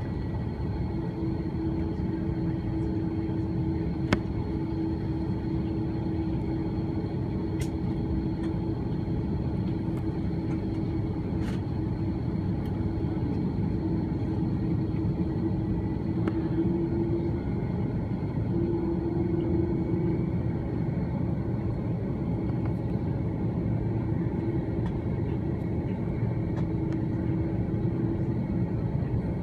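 Airbus A330-300 cabin noise during taxi: a steady rumble with a steady hum that drops in and out, and a few faint clicks.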